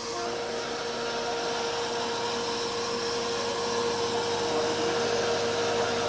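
A precision wafer dicing saw running: a steady whirring hiss with a constant whine beneath it, slowly growing louder.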